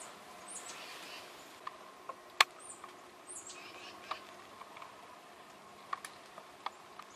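Quiet outdoor ambience: scattered light ticks and clicks, one sharper click about two and a half seconds in, and a few brief high chirps over a steady faint hiss.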